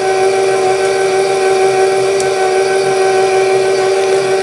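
Electric mixer running steadily as it beats pound cake batter, a constant motor whine.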